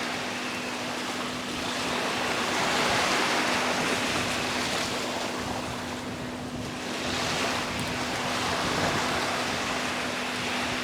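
Sea surf washing onto a beach, a steady rush of water that swells about two seconds in, eases for a moment, then swells again.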